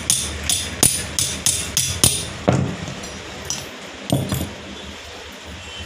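Hammer tapping a 22 mm box socket used as a driver to press a new oil seal into the pinion housing of a Hyundai Santro Xing power steering box: a quick run of sharp metallic taps, about four a second, for two seconds, then a few slower taps that stop after about four seconds.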